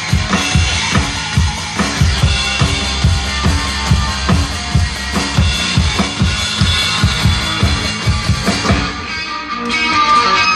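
Electronic drum kit played through an amplified sound system in a steady kick-and-snare beat, with guitar music playing along. The drumming stops about nine seconds in while the guitar music carries on.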